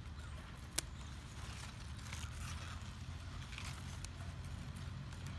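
Large mustard-green leaves rustling and crackling as they are handled and cut from the plant, with one sharp click about a second in.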